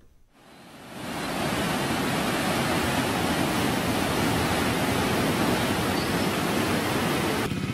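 Fast, turbulent floodwater rushing in a swollen river, a dense steady rushing noise that fades in over the first second.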